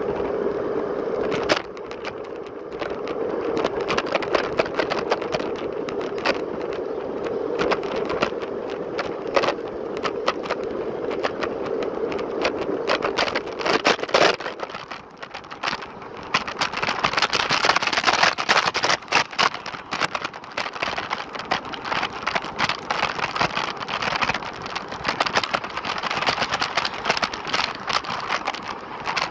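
Lime rental electric kick scooter riding over city pavement, with dense rattling and clicking throughout. A steady whine is heard for the first half and fades out about halfway through, after which the rattle and hiss get brighter.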